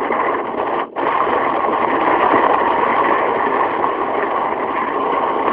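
Steady hiss and rumble of a worn old recording's surface noise with no voice, dipping briefly about a second in.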